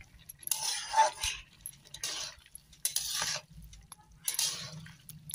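A spatula stirring and scraping cooked potato and cauliflower around a kadhai, in four strokes roughly a second apart.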